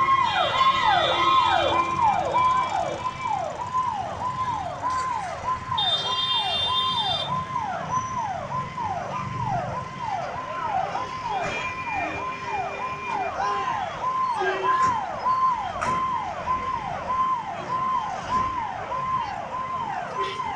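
Fire engine siren sounding in a fast repeating pattern, about two falling whoops a second, each one jumping up high and sliding down.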